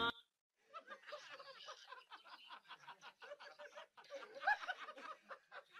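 A rapid, stuttering snicker-like laugh: quick short pulses of about eight a second, going on with a louder peak past the middle.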